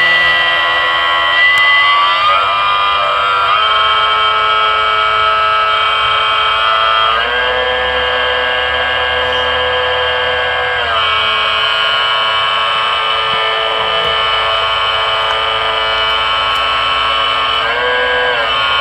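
A steady mechanical hum made of many stacked tones, like a motor running, whose pitch glides up and settles back down a few times.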